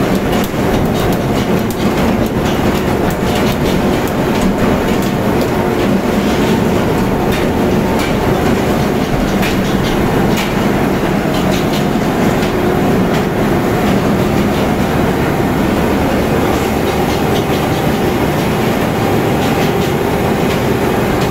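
Loud steady running of a tuna boat's fish conveyor and deck machinery, with a continuous hum and irregular rattling knocks as whole tuna drop down the metal chute into the chilled-water hold.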